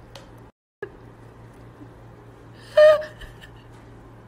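A short, high-pitched squeal from a young child's voice about three seconds in, over low room hiss. The audio cuts out completely for a split second under a second in.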